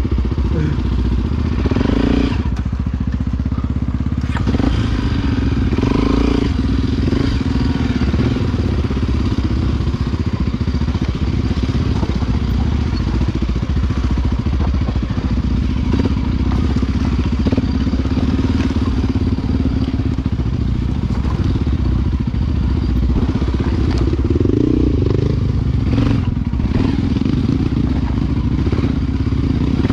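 Honda XR Tornado enduro motorcycle's single-cylinder four-stroke engine running under a rider, its pitch rising and falling a few times, with scattered clatter and knocks.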